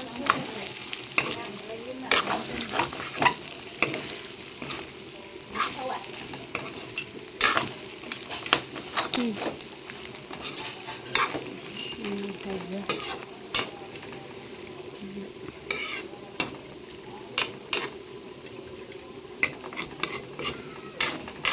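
Food sizzling as it fries in a pan while it is stirred, with frequent sharp clicks and knocks of a metal spatula against the pan.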